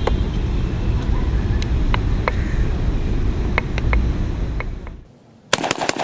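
Low, steady rumble of a car's road noise with a few sharp clicks, which falls away about five seconds in. Near the end comes a rapid rattle of sharp cracks.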